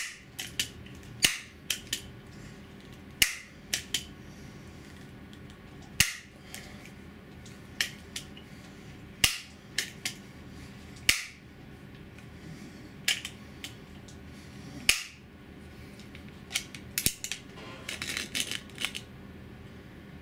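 Benjamin HB22 .22 multi-pump pellet pistol being pumped up: a sharp clack at each stroke of the pump lever, about every two seconds, some strokes giving a double click. Near the end comes a quick run of lighter mechanical clicks.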